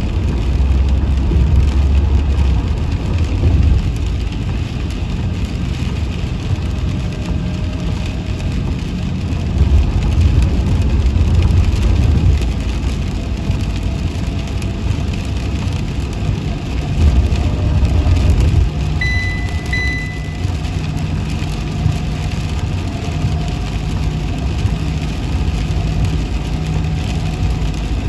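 Steady low rumble of a motor vehicle's engine and road noise, swelling and easing a few times, with two short high beeps close together about two-thirds of the way through.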